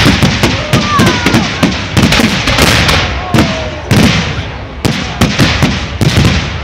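Aerial firework shells bursting in a dense barrage, loud bangs coming several a second without a break.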